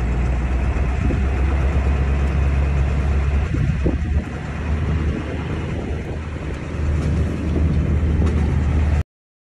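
Low, steady rumble of a diesel pickup truck driving: the 1997 Ford F-350's 7.3 L diesel engine and road noise heard from the cab. It eases off about four seconds in, picks up again near seven seconds, and cuts off suddenly near the end.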